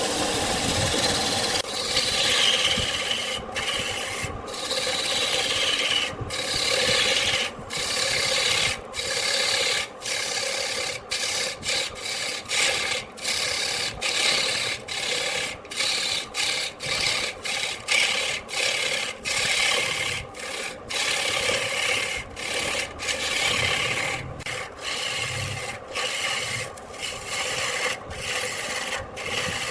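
Wood lathe running while a turning tool scrapes and cuts the spinning wood. The scraping breaks off briefly many times, about once a second.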